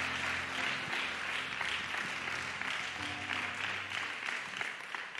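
Congregation applauding, many hands clapping at once and tapering off toward the end, over a soft sustained keyboard chord.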